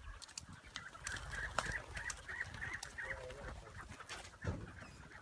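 Chukar partridges calling: a run of short repeated notes in the first half, with scattered clicks and knocks over a low rumble.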